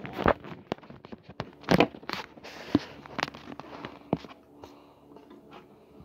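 Close handling noise: a string of knocks, clicks and rubs, loudest about two seconds in, thinning out over the last few seconds above a faint steady hum.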